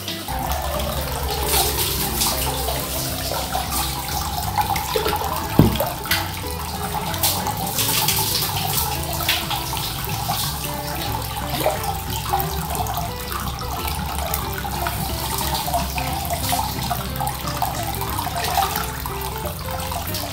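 Water splashing and running in a hot-spring bath as water is poured from a plastic bath pail, with one sharp knock about five and a half seconds in.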